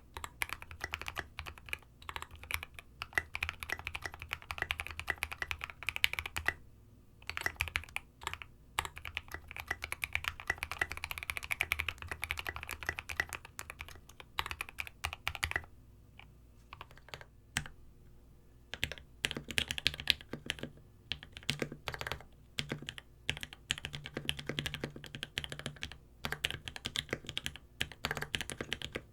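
Fast typing on a Space65 custom keyboard with an aluminium plate and lubed H1 switches: a dense, steady run of keystroke clacks. After a short pause about two-thirds of the way in, the typing resumes deeper and fuller, as the SA Oblivion keycaps on a desk mat give way to GMK Oblivion keycaps.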